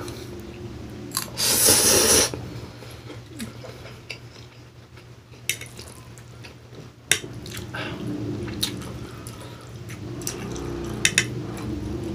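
Close-miked eating of instant pancit canton noodles: a loud slurp about a second in, then chewing and wet mouth sounds, with a metal fork clicking and scraping against the plate.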